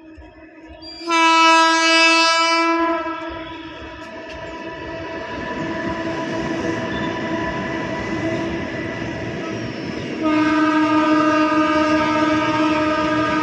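Locomotive horn of a goods train sounding twice: a blast of nearly two seconds about a second in, and a long blast starting about ten seconds in. Between the blasts the train's rumble grows steadily louder.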